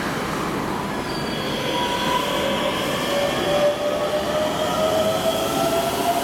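Electric commuter train pulling out of an underground station, its traction motors whining steadily higher in pitch as it accelerates, over the rumble of wheels on rail, echoing in the tunnel.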